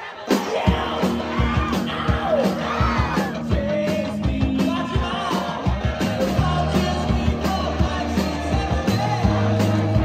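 Live rock band with a male lead singer over electric bass and drums; the full band comes in loudly a fraction of a second in.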